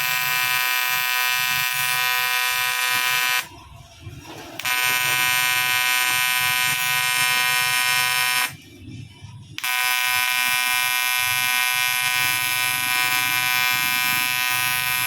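TIG welding arc buzzing steadily as a repair is welded on the aluminium CT100 engine block. The buzz stops twice for about a second each time and then starts again, as the arc is broken and struck again.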